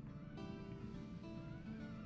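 Background music with plucked string notes, changing every half second or so.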